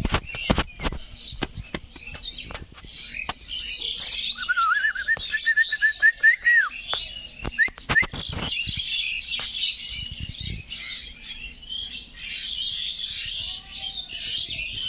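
Many small birds chirping and twittering continuously, with one bird giving a lower, warbling run of notes for a couple of seconds near the middle. Sharp clicks and knocks come in clusters over the first few seconds and again around eight seconds in.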